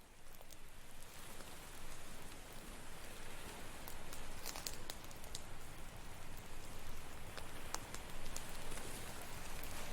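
A campfire crackling and popping in irregular sharp snaps over a steady wash of ocean surf, fading in over the first couple of seconds.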